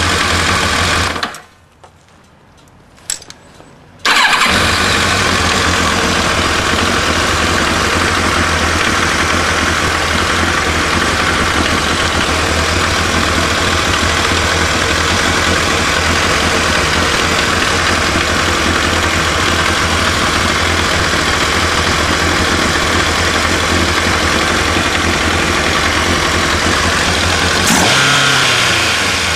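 1992 Kawasaki ZXR750 J's inline-four engine idling, then cut off about a second in. After a couple of quiet seconds with a few clicks, it is started again and settles into a steady idle, with a brief rise in revs near the end.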